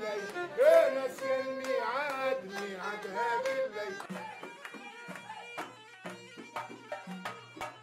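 Background instrumental music. A melody of held, wavering notes with ornamented slides gives way about halfway through to a steady run of plucked, percussive notes.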